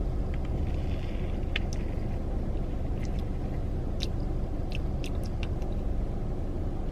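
Eating sounds: scattered short clicks of chewing and a utensil against the dessert container, over a steady low hum inside a car.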